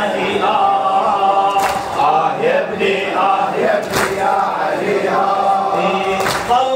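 Male reciter chanting an Arabic mourning lament (latmiya) into a microphone, with three sharp slaps at an even slow beat, one about every two and a quarter seconds.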